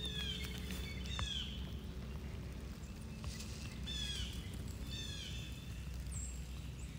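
A songbird singing a repeated phrase of quick, high, downward-sweeping notes, four times, over a steady low background noise.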